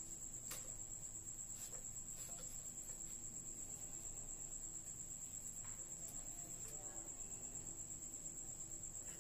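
A cricket's steady high-pitched trill with a fast, regular pulse, over faint rustles and a few light clicks of hands undoing a wet muslin cloth bundle on a steel strainer.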